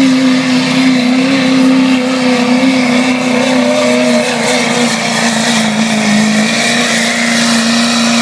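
Diesel pickup truck engine running hard under full load as it drags a pulling sled, one loud steady drone whose pitch sags slowly.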